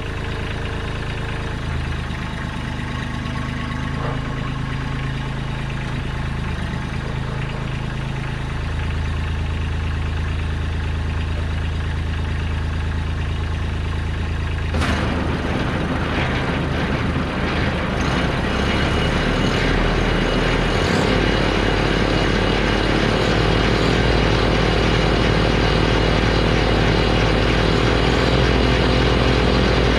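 Kubota LX2610 compact tractor's three-cylinder diesel engine running steadily. About halfway through, the front-mounted Kubota LX2980 snowblower is engaged and its auger and impeller spin up, adding a sudden rushing whir over the engine. The sound grows slightly louder toward the end.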